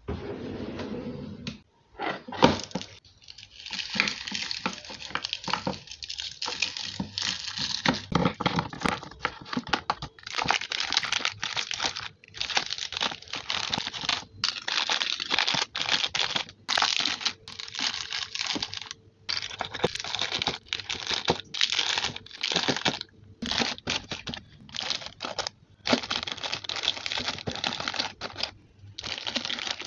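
Crinkly plastic snack wrappers and chip bags being handled and set down into a drawer, in short rustling bursts with brief pauses between them.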